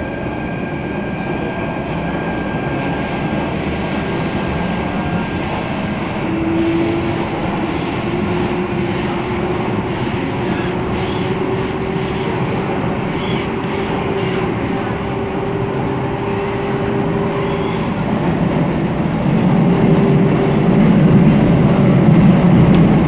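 MTR K-Train running, heard from inside the car: a steady rumble of wheels on track. A held whine that rises slightly in pitch comes in about a quarter of the way through and fades out past the middle. The rumble grows louder near the end.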